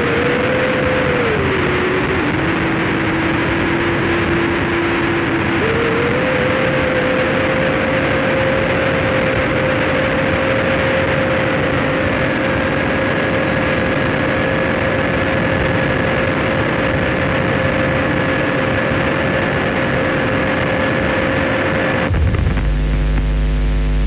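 Harsh noise wall: a loud, dense wash of distorted noise with a held whining tone through it. The tone drops in pitch about two seconds in and jumps back up around six seconds. In the last couple of seconds a heavy low buzz with a stack of overtones cuts in.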